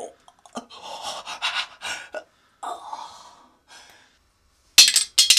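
A man gasping and breathing heavily through an open mouth, in hissing, uneven breaths, with a sudden harsh, loud burst of breath near the end.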